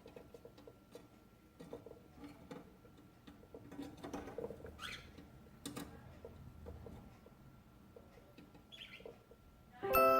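Cockatiel giving a couple of short, soft rising chirps among light clicks, taps and scratching. A tinkling music tune comes in loudly right at the end.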